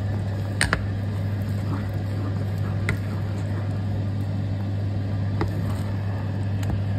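A steady low hum, with a few light clicks and scrapes as a silicone spatula stirs thick mashed purple yam and coconut cream in a metal saucepan.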